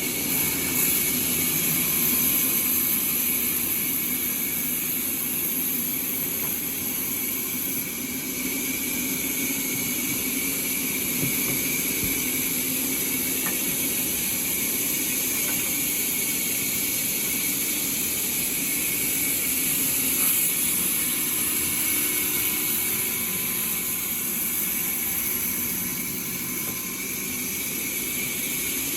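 Sawmill saw and its machinery running steadily, a constant high whine over an even mechanical hum.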